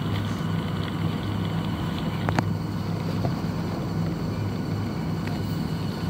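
Costa self-service coffee machine running steadily as it dispenses a latte into a cup, a low steady hum with a faint click about two seconds in.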